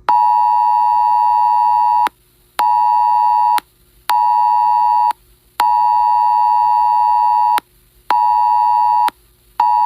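Wireless Emergency Alert attention signal from a phone's speaker: a harsh two-tone alarm pulsing in its long-short-short rhythm, one 2-second tone followed by two 1-second tones with half-second gaps, and the pattern starting again. It announces a tornado warning.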